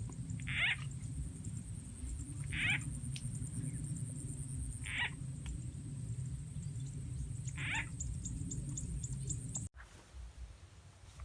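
A frog-call sound effect played back to lure frogs: the same short call repeats four times, about every two and a half seconds. Under it run a steady low rumble and a steady high-pitched buzz, and the background drops away sharply near the end.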